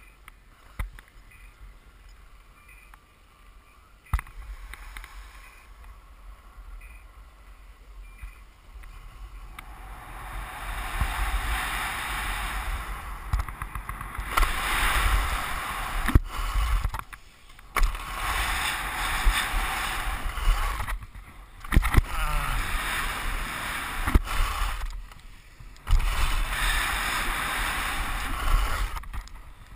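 Skis scraping and carving over hard-packed halfpipe snow, with wind rushing over the helmet camera's microphone. It gets much louder about ten seconds in as speed builds, and is broken by a few brief quiet gaps, each ended by a sharp knock, as the skis leave the snow and land.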